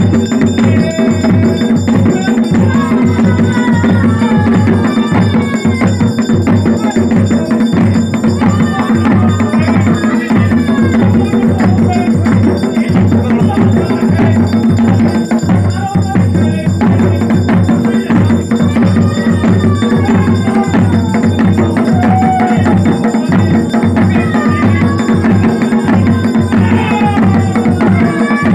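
Loud drumming with a fast, even beat, and voices gliding up and down over it.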